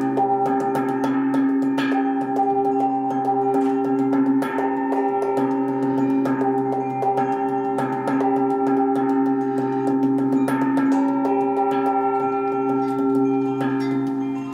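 Gongs and bell-like metal percussion played in free improvisation. A dense, sustained ringing drone sits under rapid, repeated strikes, several per second, with no pause.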